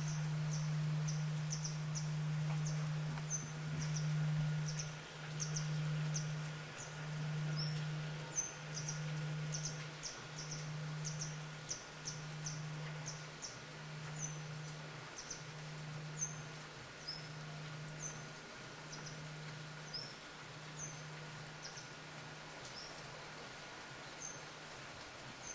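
Japanese temple bell humming as it slowly dies away after a strike, its low tone swelling and fading in waves about once a second. Small birds chirp often over it.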